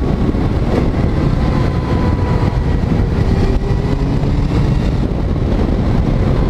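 Motorcycle engine and exhaust running steadily under way, with a faint slowly drifting engine note over a dense low rumble.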